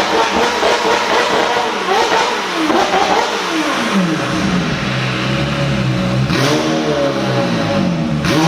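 McLaren 720S twin-turbo V8 through catless Inconel downpipes and a titanium X-pipe exhaust, revving high and unsteadily. About four seconds in it drops to a steady lower note, and it gives a quick rev blip a little later.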